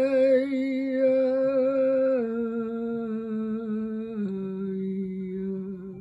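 A single voice humming one long held note that steps down in pitch twice, at about two and four seconds in.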